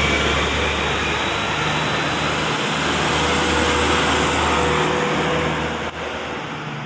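A bus driving past: a steady low engine hum under a broad rush of road and tyre noise.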